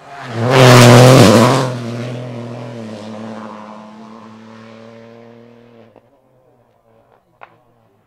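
Rally car passing close at speed on a gravel road: a loud rush of engine and gravel noise about a second in, the engine note dropping as it goes by. The engine then holds a steady note while fading into the distance, and dies away abruptly about six seconds in.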